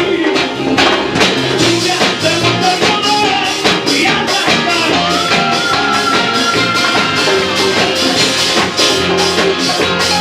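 Lively praise music with a quick, steady percussive beat under a melody, with one long held note near the middle.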